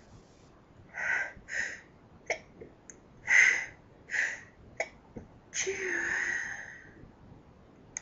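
A woman sneezing in a fit: a quick series of stifled and half-stifled sneezes with sharp breaths between, ending in a longer sneeze with voice in it.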